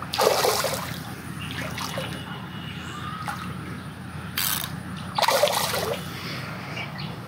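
A hooked fish splashing at the water's surface near the bank: two main splashes, one just after the start and a stronger one about five seconds in, with a shorter rustling splash between them.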